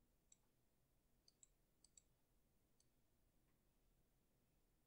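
Near silence with a few faint computer mouse clicks in the first three seconds.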